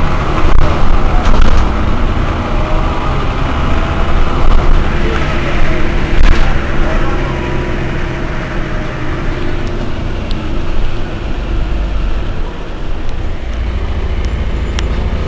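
Mercedes-Benz O405 N city bus's six-cylinder diesel engine running, a steady low rumble.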